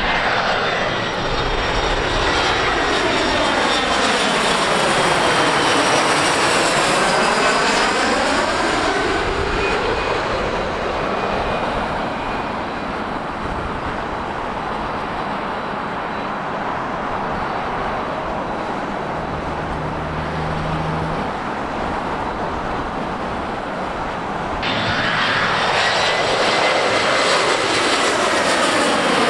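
Jet airliners on final approach passing low overhead one after another, among them Embraer E175 regional jets: a steady turbofan roar with a sweeping, phasing whoosh that falls and then rises in pitch as each plane goes over. The sound changes abruptly about 25 seconds in as the next jet comes over.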